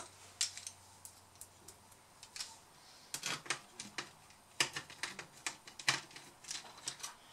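Irregular light clicks and ticks of a small precision screwdriver and a tiny screw against a laptop's motherboard and plastic chassis as a screw is driven in.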